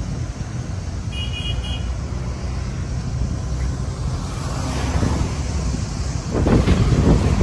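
Steady low rumble of a moving vehicle's engine and road noise, with a brief high electronic beeping about a second in. Near the end, wind buffets the microphone loudly.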